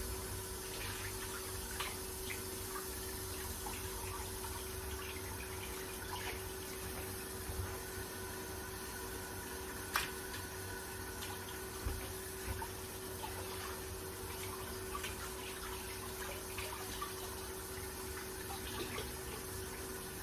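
Kitchen faucet running steadily into the sink, with scattered light knocks and clicks from handling, the sharpest about ten seconds in.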